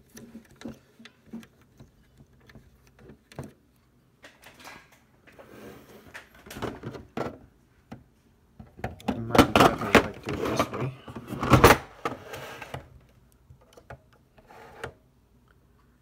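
Handling of a sealed lead-acid UPS battery cartridge and the plastic UPS case: scattered light clicks and rustles, then a few seconds of louder scraping and knocking with a sharp thunk about three-quarters of the way through.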